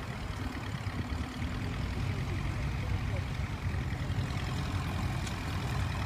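Tractor engine running steadily under the load of a plough: a constant low engine note with no changes in pace.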